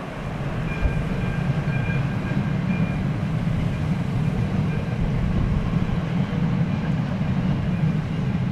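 Freight train passing at speed: the rear of its two electric locomotives and then a long string of double-deck car-transporter wagons, a steady rumble of wheels on rail. A faint high whine sounds in the first few seconds.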